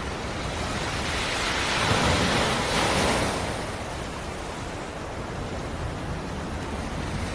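Black Sea surf: a wave swells and breaks about two to three seconds in, then washes back into a steady hiss of surf.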